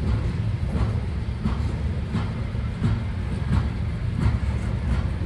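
Freight train flatcars loaded with waste containers rolling past: a steady low rumble of steel wheels on rail, with a short, sharper sound recurring about every two-thirds of a second.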